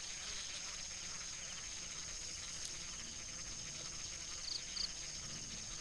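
Steady high-pitched chorus of crickets and other insects, with two short high chirps about four and a half seconds in.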